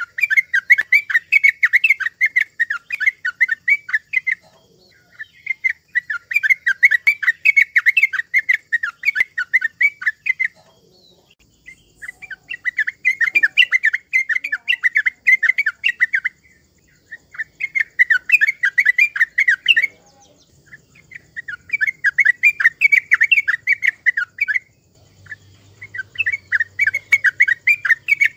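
Yellow-vented bulbul singing: six bursts of fast, chattering chirps, each a few seconds long, with short pauses between them.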